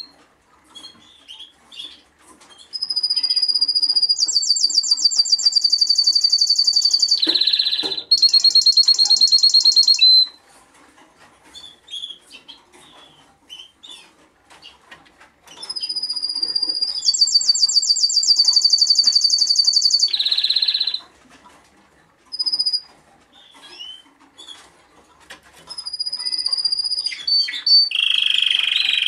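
Male Timbrado Español canary singing in long phrases of rapid trills and held whistled notes, with pauses of several seconds between them. The first phrase runs about seven seconds and the second about five, with shorter phrases near the end.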